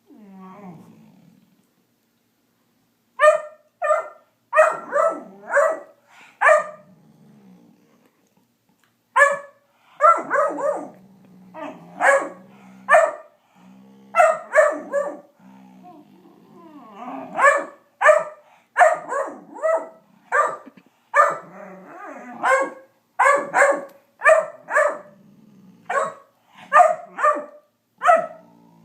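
Great Dane puppy barking over and over in short, sharp barks, some in quick runs of two or three, with a low rumble between the barks.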